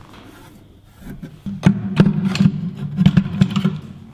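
Background music with a plucked guitar, quieter for about the first second and then fuller.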